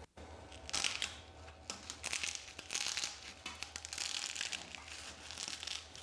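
Dusty fabric filter sleeve on a homemade vacuum's filter cylinder being handled and pulled at: irregular rustling and crinkling of the cloth.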